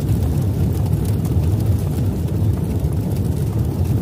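Steady, deep rumbling sound effect of an animated logo outro, with no music or voice.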